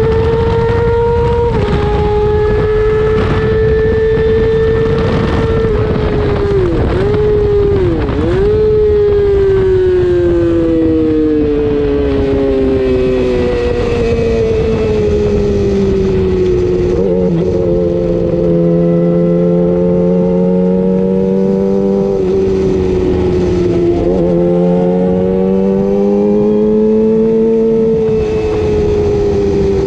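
600cc race motorcycle engine heard onboard, with heavy wind rush at high speed at first. Two quick dips in pitch come around seven and eight seconds in as the bike shifts down under braking. The engine note then falls away steadily, holds low, and rises and falls again through the slower infield corners.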